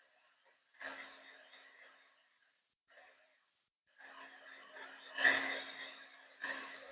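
Electric heat gun blowing hot air onto a wooden board: an airy hiss over a steady low motor hum, heard in stretches that start abruptly and drop out twice.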